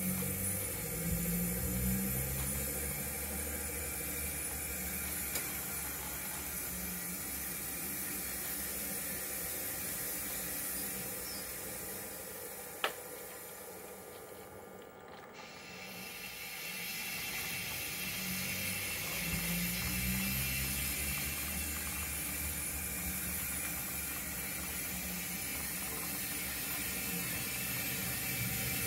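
0 gauge model steam tank locomotive running slowly over the track, a steady mechanical running sound of its motor, gears and wheels. There is one sharp click about halfway through, followed by a brief lull.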